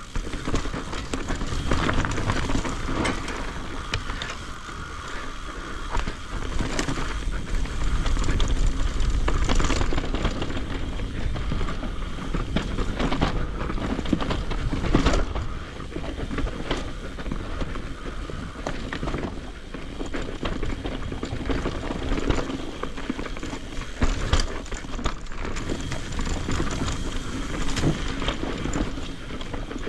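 Mountain bike descending a rough dirt trail: tyres rolling over dirt and rock, with frequent knocks and rattles from the bike over the bumps and a steady low rumble.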